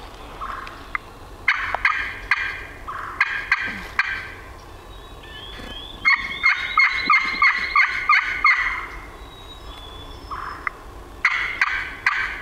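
Hand-held turkey call worked in loud runs of raspy yelps: a few short runs in the first four seconds, a longer run of about nine notes from about six to eight and a half seconds, and another short run near the end. The calling is meant to make a moving gobbler answer so the hunters can pin down where he is.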